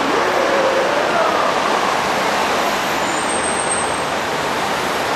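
Steady rushing noise of city street traffic.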